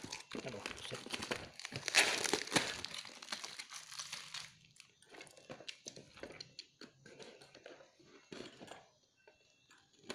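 Packing tape and plastic wrapping being torn and crinkled off a cardboard parcel. After about four seconds it gives way to short scrapes and clicks as a box cutter slices through the tape.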